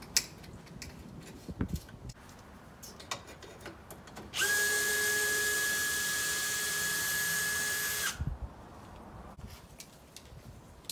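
Cordless drill running at a steady speed for about four seconds, starting about four seconds in, working at the corner of a sliding glass door's frame. A few light clicks and taps come before it.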